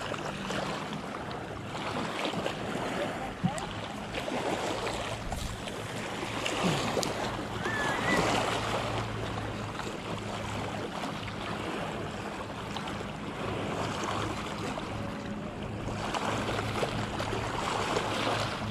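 Small waves lapping against a rocky lakeshore, with wind noise on the microphone and a low steady hum underneath.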